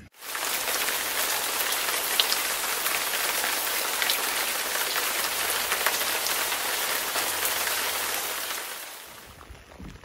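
Rain falling steadily, a dense hiss scattered with the ticks of individual drops; it fades away near the end.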